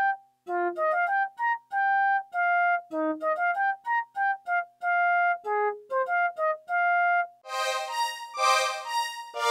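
Suzuki TES 370 synthesizer playing a quick melody of short, separate notes, with a few lower notes among them. About seven and a half seconds in, it changes to a brighter, buzzier sound with several notes sounding together.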